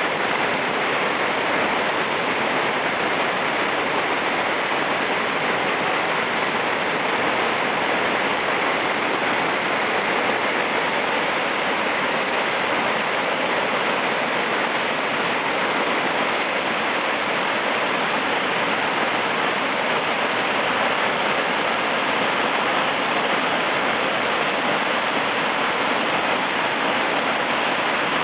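Steady, loud rush of a river waterfall in spring flood, whitewater pouring over the drop.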